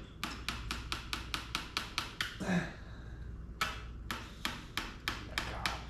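Hammer tapping a part into place with quick, even strikes, about four or five a second. The blows come in two runs of about ten each, with a pause of about a second between.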